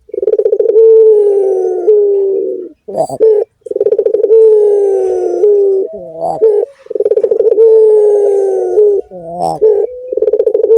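Puter (Barbary dove) cooing in the long, drawn-out gendowor style: four long coos, each about two seconds and slightly falling in pitch, with a short warbling break between each.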